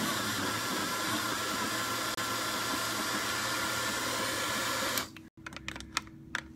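Battery-powered portable blender bottle running steadily as it blends a thick avocado milkshake, then switching off abruptly about five seconds in. After it stops come a run of light plastic clicks and taps as the lid is taken off the cup.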